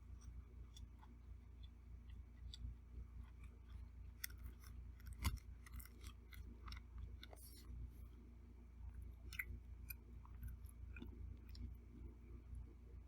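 Someone eating: chewing, with scattered sharp clicks of cutlery against a plate, the loudest about five seconds in, over a low steady hum.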